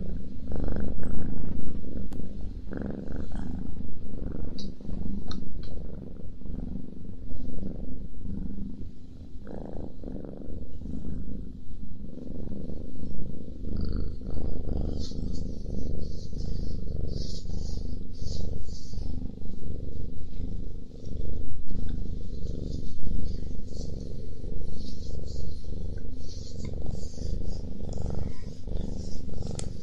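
Domestic cat purring steadily, close to the microphone, with scattered small clicks over the purr, more of them in the second half.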